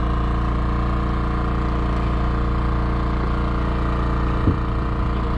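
An engine aboard a fishing boat idling steadily, with a single short knock about four and a half seconds in.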